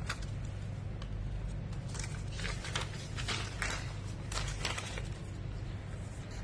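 Paper banknotes rustling and crinkling in several short crackles as a cat paws and rolls on them, over a steady low hum.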